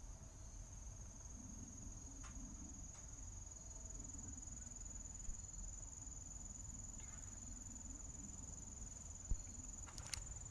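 Crickets trilling in one steady, high, unbroken tone, over a faint low rumble, with a single sharp click about nine seconds in.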